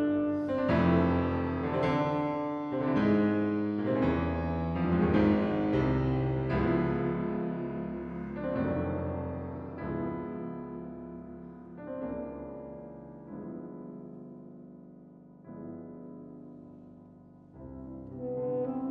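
Steinway concert grand piano playing a solo passage of chords, each ringing and dying away, the music growing steadily quieter. Near the end an alto saxophone comes back in.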